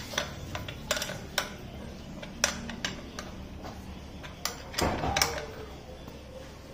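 Irregular sharp metal clicks and taps of a spanner tightening the axle nuts of a bicycle's front wheel against the fork, with a short cluster of clatter about five seconds in.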